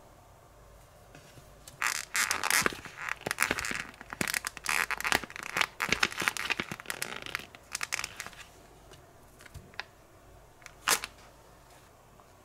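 Thin clear plastic candy mold crackling and crinkling as it is flexed and a gummy is pressed out of it, in a dense run of clicks from about two seconds in until past eight seconds, then one sharp click near the end.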